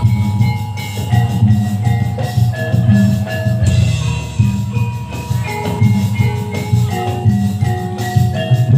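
Javanese gamelan accompaniment for a kuda lumping dance: metal keyed instruments ring out a stepping melody of held notes over steady, pulsing drumming.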